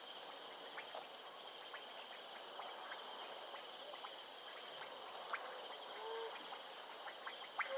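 Night insects trilling in a steady chorus: a continuous high buzz with shorter high trills repeating in pulses over it. A brief low animal call sounds around six seconds in.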